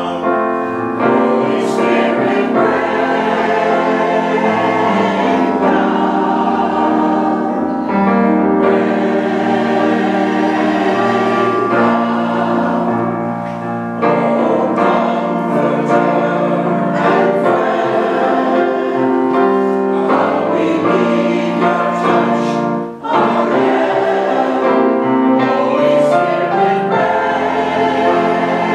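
Mixed choir of men's and women's voices singing a hymn in parts, with a brief break between phrases about three-quarters of the way through.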